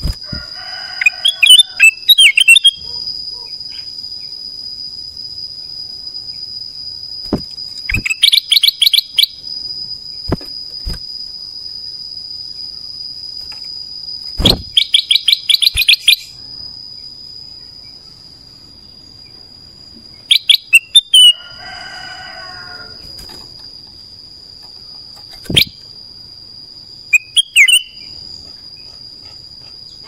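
Ruby-throated bulbul (kutilang emas) singing: five short bursts of rapid, clear repeated notes a few seconds apart, over a steady high-pitched tone, with a few sharp clicks between phrases.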